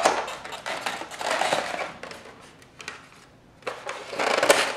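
Egg carton crackling in several bursts as its lid is opened and an egg is lifted out, the last burst near the end among the loudest.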